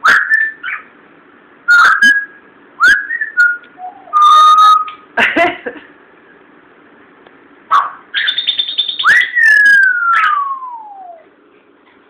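Timneh African grey parrot whistling and calling: a string of short upward-gliding whistles, a briefly held note about four seconds in, a quick buzzing trill near eight seconds, then one long whistle sliding down in pitch.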